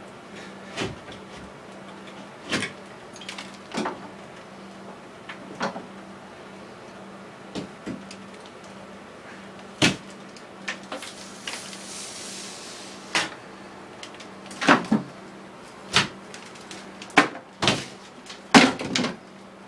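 Irregular knocks and taps from a hand tool working at a ceiling, opening it up to trace a leaking water pipe. The knocks grow louder and closer together near the end, with a brief rushing hiss about halfway through.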